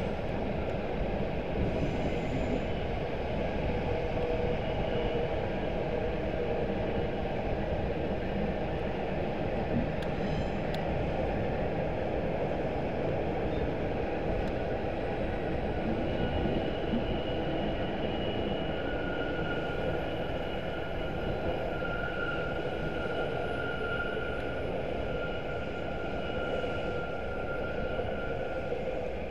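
Freight train of box wagons rolling through a station, a steady rumble and clatter of wagon wheels on the rails. A thin high-pitched squeal joins in the second half as the last wagons pass.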